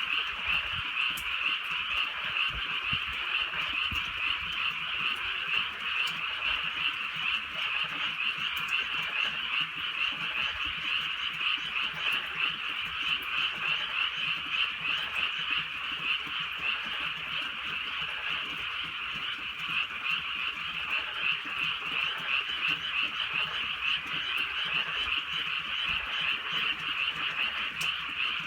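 A dense chorus of many frogs croaking at once, a continuous fast-pulsing trill with no break.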